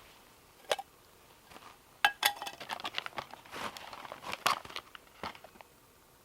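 Food packaging being handled: a sharp click near the start, then a few seconds of crinkling and tearing with many sharp crackles, typical of opening a dehydrated meal pouch.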